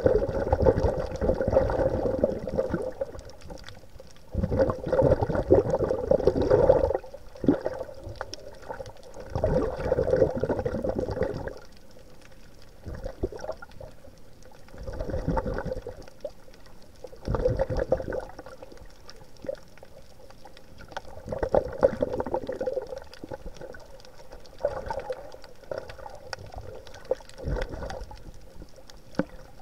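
Water sounds from a swimmer on the reef: bursts of breath and bubbles, each one to three seconds long, coming about every four or five seconds with quieter gaps between them.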